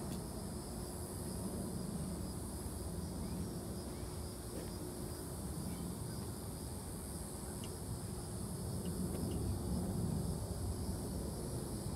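Outdoor ambience: a steady high-pitched insect drone over a low rumble, with a few faint short chirps.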